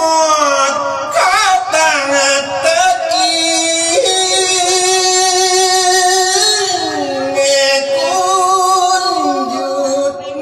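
A monk singing a Thai verse sermon (thet klon) in a melodic chant, with long held notes that slide up and down between phrases.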